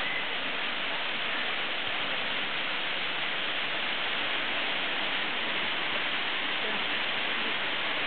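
Waterfall and its stream rushing steadily over rocks into a pool.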